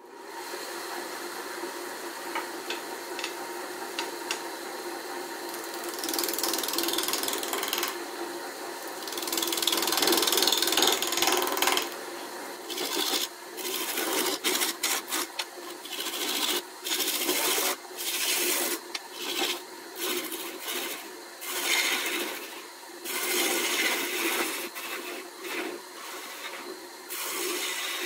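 Wood lathe running with a steady motor hum while a gouge cuts a spinning magnolia fork blank, a scraping hiss of wood being cut. About halfway through the cutting breaks into short rasping bursts, roughly one a second, the interrupted cut of an out-of-round, barky blank. Played back sped up fourfold.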